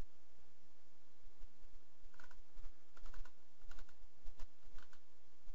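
Light clicks of computer keys being pressed, in small bunches of one to three, beginning about two seconds in and stopping just before five seconds, over a steady low hum.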